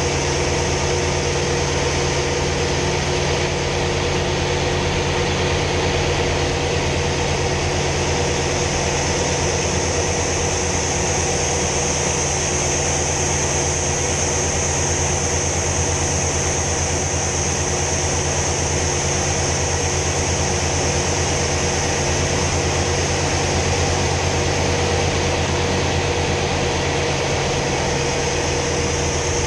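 Sea Fury T20's radial piston engine heard from inside the cockpit in flight, running at steady power as a loud, even drone with the rush of air over the canopy.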